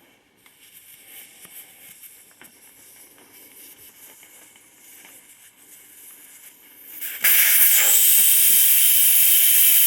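Faint clicks and fiddling of a valve core remover on a garden tractor tire's valve stem, then about seven seconds in a sudden loud, steady hiss of air rushing out as the valve core comes free and the tire deflates.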